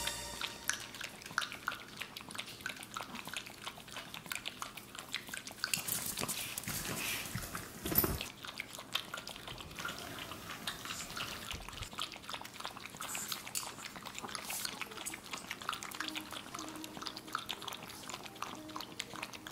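A Maltese dog lapping water from a non-spill bowl with a floating disc: a quick, steady run of small wet laps and clicks. One louder thump about eight seconds in.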